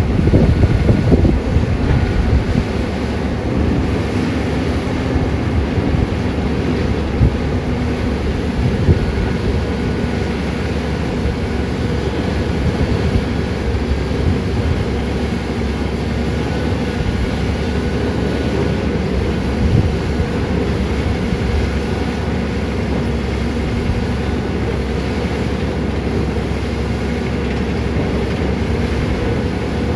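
Caterpillar 320D excavator's diesel engine running steadily under working load, louder for the first couple of seconds. A few short knocks stand out, one around a quarter of the way in, one shortly after, and one about two-thirds in.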